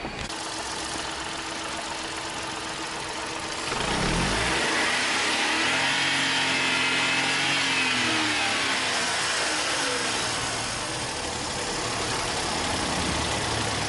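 Opel three-cylinder Ecotec petrol engine idling, then revved up slowly about four seconds in and let fall back to idle a few seconds later.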